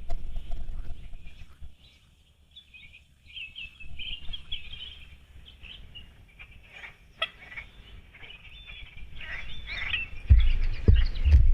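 Small songbirds chirping and singing in many quick notes. Underneath is a low rumble that swells to its loudest near the end.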